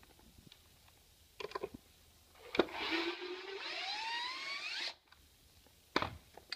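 Cordless drill-driver backing a screw out of a wooden unit: its motor whines for about two seconds, rising steadily in pitch as it speeds up, then stops abruptly. A few short clicks and knocks come before and after.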